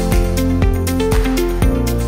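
Electronic background music with a steady beat and held synth notes.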